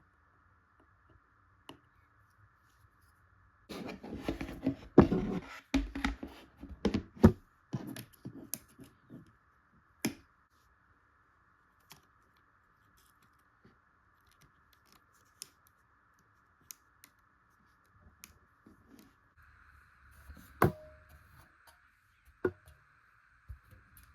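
Small clicks, taps and scrapes of hands handling laptop parts and tools. A dense flurry comes about four to nine seconds in, then scattered single clicks, over a faint steady hiss.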